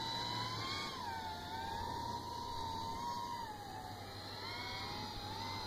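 The electric motors and propellers of a small radio-controlled aircraft, most likely the 5-inch FPV quadcopter, whining overhead. The pitch wavers up and down as the throttle changes, over a steady low hum.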